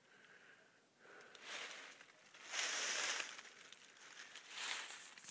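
Dry rustling noise in three swells, the loudest about two and a half seconds in, with a short click at the very end.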